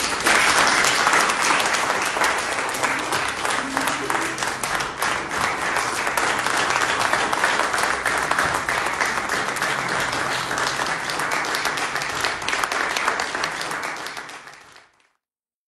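Audience applauding: dense, steady clapping that starts all at once and fades out near the end.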